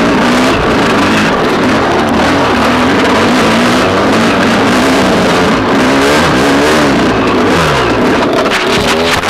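Dirt bike engine revving up and down under throttle while being ridden, its pitch rising and falling repeatedly.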